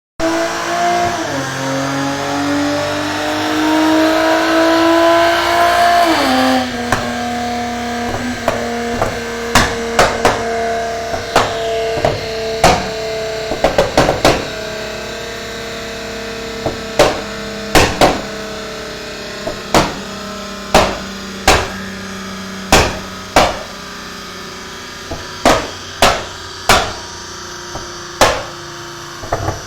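Toyota Mark X's V6 engine in a dyno pull, its pitch rising steadily for about six seconds, then falling away sharply to a steady lower note as the throttle is lifted. From about nine seconds in, sharp exhaust pops and bangs go off irregularly, roughly one a second, over the running engine.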